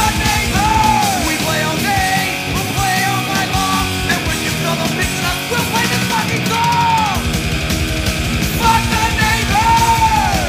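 Loud punk/heavy-metal band music with notes that bend up and fall back. The deep bass and drum low end drops away about a second in and comes back in full about seven seconds in.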